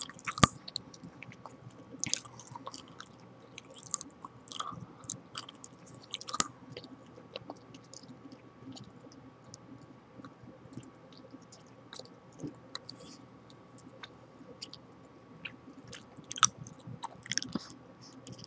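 Gum being chewed close to the microphone: irregular wet smacks and clicks of the mouth and lips, sparser in the middle stretch.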